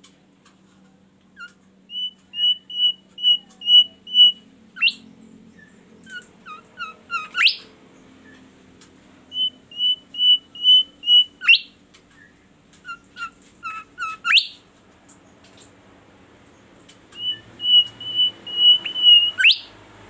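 Caged bimoli songbird singing: phrases of quickly repeated clear whistled notes, each phrase ending in a sharp upward sweep, five times with short pauses between.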